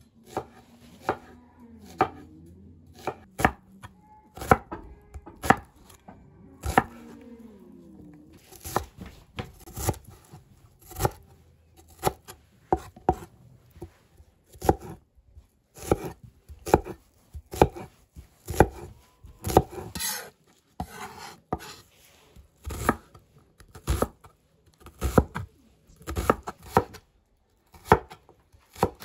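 Large kitchen knife chopping an onion on a wooden cutting board: sharp knocks of the blade striking the board, sparse at first and then about one or two a second.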